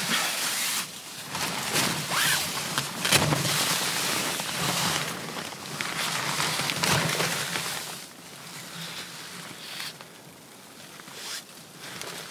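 Tent fabric and a sleeping bag rustling as the tent door is pushed open, in uneven bursts that are busiest for the first eight seconds and quieter after.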